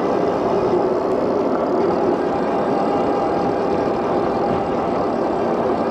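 Steady rolling noise of a SUPER73 electric bike ridden along a paved path: tyre hum and rushing wind, with faint steady tones in it, unbroken throughout.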